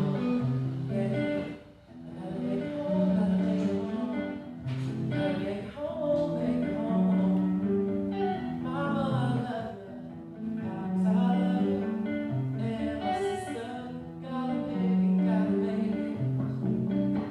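A song: singing over plucked guitar, with held notes changing about every second.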